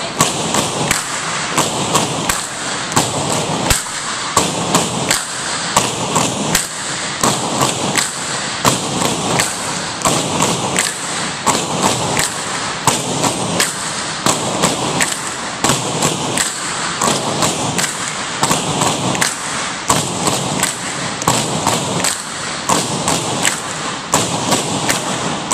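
Tinikling poles tapped on a wooden gym floor and clapped together in a steady repeating rhythm of sharp knocks, several sets of poles going at once, with dancers' feet landing between them.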